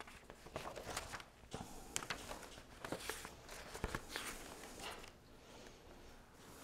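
Faint rustling of paper and scattered small clicks and taps, irregular and quiet, as notes are handled at a lectern.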